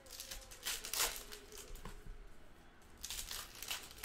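Plastic trading-card pack wrapper crinkling as it is torn open and crumpled, in two bursts about two seconds apart.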